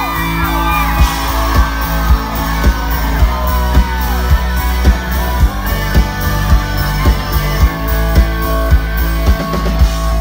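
Live rock band playing through the PA: drums on a steady beat of about two hits a second under electric guitars, keyboard and vocals.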